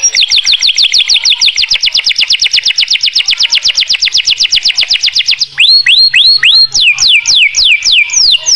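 Domestic canary singing: a fast, even trill of rapidly repeated high down-slurred notes, about eight a second, then about five and a half seconds in a change to slower looping whistled notes, two or three a second.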